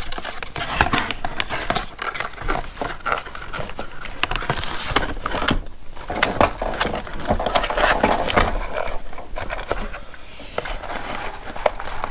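A cardboard box and packaged ratchet straps being handled while a twist tie is worked loose: irregular rustling and scraping with many small clicks.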